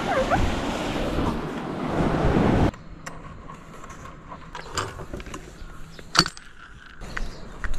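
Small waves washing up a sandy beach, cut off abruptly a little under three seconds in. Then come light clicks and knocks of a small outboard motor's clamp bracket being handled and screwed tight on a wooden stand, with one sharp metallic click about six seconds in.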